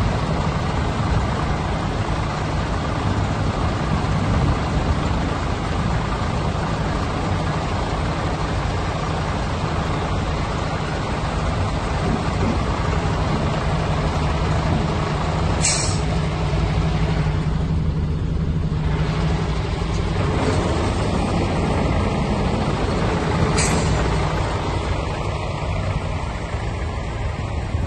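MAN TGA 26.350's inline-six diesel engine running steadily with a constant low hum. Two brief air hisses sound, one about halfway through and another some eight seconds later.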